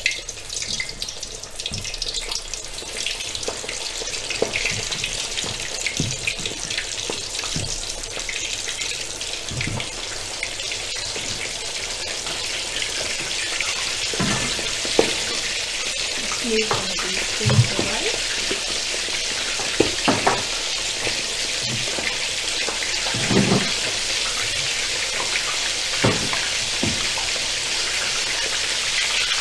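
Chicken pieces coated in tapioca starch and rice flour deep-frying in hot oil in a pan: a steady, dense sizzle that builds over the first few seconds and holds. A few short knocks sound over it in the second half.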